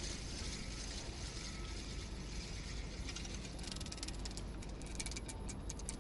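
Spinning reel being cranked to retrieve a soft-plastic lure, over a steady hiss. From about three and a half seconds in, a fast, dense run of clicks.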